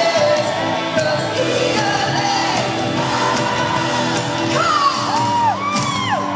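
Live pop-rock band playing with a woman singing lead, heard from the audience in a large hall. High swooping vocal whoops rise and fall in the second half.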